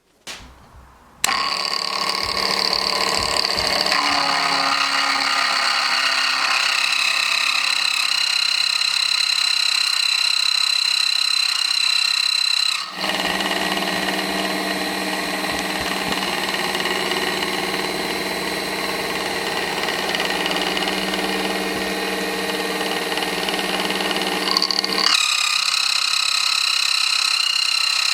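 Mini metal milling machine running with a steady, high whine. It starts about a second in, and its sound changes abruptly about 13 seconds in and again near 25 seconds.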